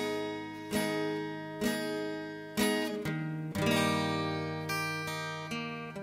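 Background music: a strummed guitar, chords struck roughly once a second and each left to ring out.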